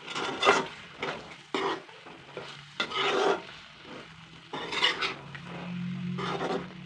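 Spatula scraping and stirring chicken roast in a hot pan, about five strokes, over oil sizzling. The dish is nearly done, the oil separated from the masala.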